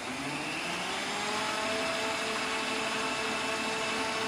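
Servo longitudinal power feed motor on a Chevalier vertical mill driving the table in rapid traverse: a steady electric whine that rises in pitch over the first second as it comes up to speed, then holds.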